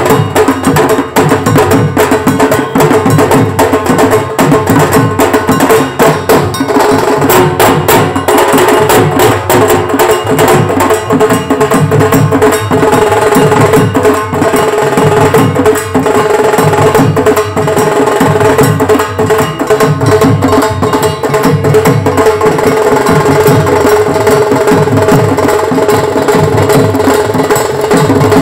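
Bengali wedding band party playing loud: fast, dense drumming under steady held melody notes.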